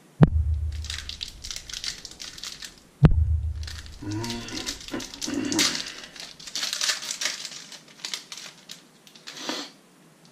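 Foil wrapper of a trading-card booster pack being torn open and crinkled in the hands. Two sharp thumps stand out as the loudest sounds, one right at the start and one about three seconds in.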